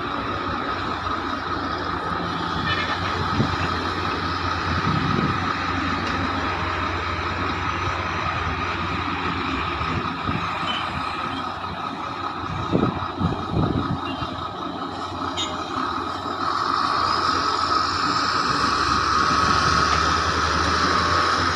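Heavy diesel machinery at a mine loading site, the engines of a hydraulic excavator and dump truck, running steadily with a constant whine. A few louder rumbles come about halfway through, and the sound grows louder about three-quarters of the way through.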